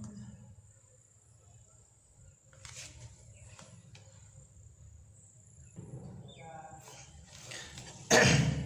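Quiet background with a steady high-pitched chirring, typical of crickets, a few faint soft scraping and tapping noises, and a sudden loud noise near the end.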